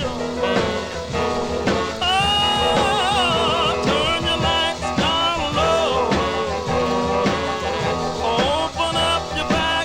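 Music: a song with a singing voice over instrumental backing with a steady bass line.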